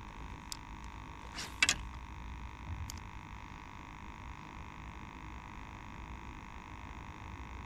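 A faint steady hum over a low rumble, with a few light clicks, the loudest pair about a second and a half in.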